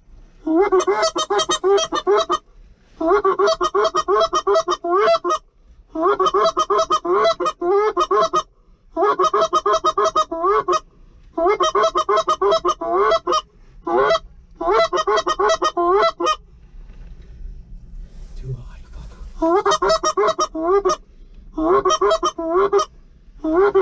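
Goose calls blown by hunters: rapid strings of loud honks and clucks in bursts of about two seconds with short pauses between, and one longer pause about two thirds of the way through.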